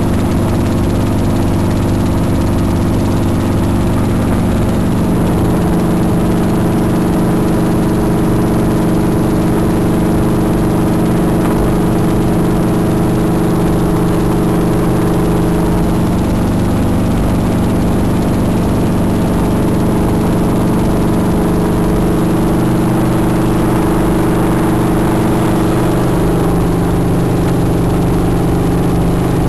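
Piston-engine helicopter in flight, heard from inside the cabin: a loud, steady drone of engine and rotor, its tone shifting slightly near the end.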